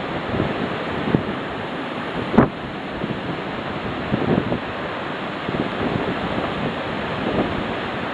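Hurricane-force wind gusting and buffeting the microphone in a steady roar of noise, with uneven gusts throughout and one sharper thump about two and a half seconds in.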